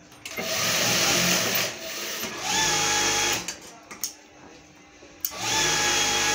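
JACK industrial sewing machine stitching cloth in bursts, its motor whine rising each time it starts; it runs for about three seconds with a short break, stops for about two seconds, then starts stitching again near the end.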